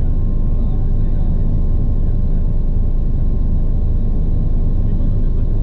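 Bell 429 twin-turbine helicopter running steadily: a dense low rotor and engine rumble with a thin, steady whine above it.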